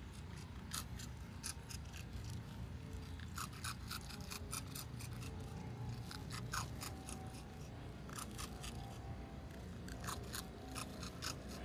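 A raccoon crunching dry ring cereal: quick, irregular runs of sharp, crisp crunches over a low steady rumble.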